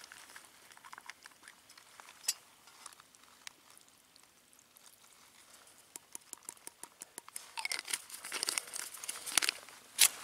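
Small handling clicks and clothing rustle, busier from about six seconds in, then near the end one sharp scrape of a ferro rod struck over a BCB cook stove.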